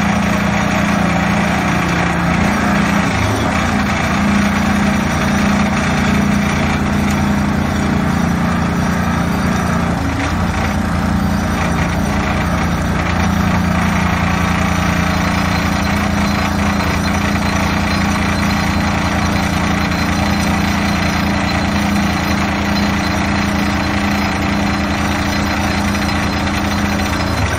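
Excavator-mounted hydraulic vibro plate compactor running, its plate vibrating rapidly against the ground, over the steady hum of the excavator's engine and hydraulics.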